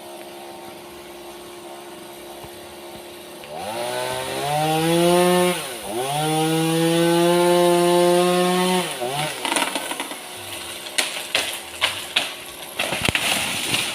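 Chainsaw idling, then revved to full throttle twice, with a brief drop in revs between, before settling back. Then a run of sharp, irregular cracks and snaps.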